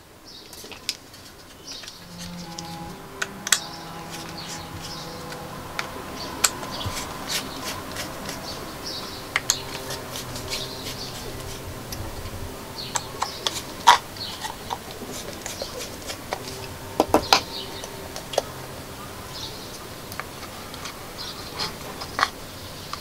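Scattered sharp clicks and taps of a small precision screwdriver and fingers on a small wooden box as its cover screws are undone and a side panel is lifted off, over faint steady tones in the background.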